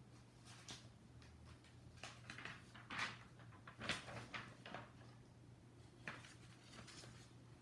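Faint eating sounds: a scatter of short, irregular crunches and mouth clicks of someone chewing, the loudest about three and four seconds in.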